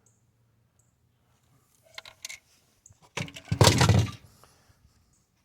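Tail light assembly being handled while its bulb sockets are twisted and pulled out: a few short plastic clicks and rattles, then a louder clatter about three seconds in.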